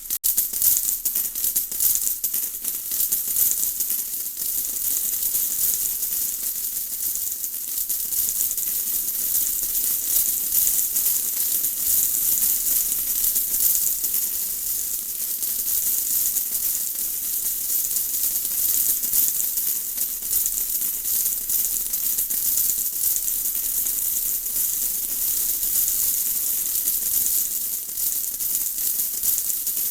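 Steady rain, a dense patter of many small drops with a bright hiss. It cuts out for an instant right at the start.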